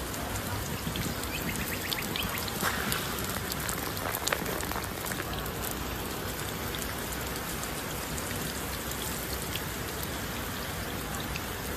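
Fine water spray showering a giant tortoise: a steady hiss of droplets falling on its shell and the ground.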